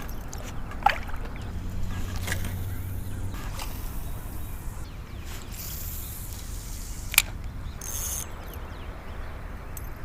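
Water sloshing against a kayak hull over a steady low rumble, with two sharp knocks, one about a second in and another a little past seven seconds.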